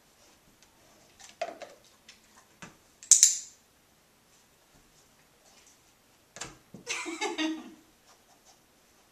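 A dog-training clicker clicks once, sharp and bright, about three seconds in, marking the Great Dane's right front paw on the foam target. Soft scuffs come before it, and a longer stretch of scuffling and rustling comes in the second half as the treat is given and the target is handled.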